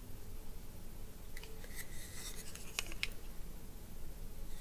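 Quiet handling noises: a few light clicks and a short scratchy rub about two seconds in.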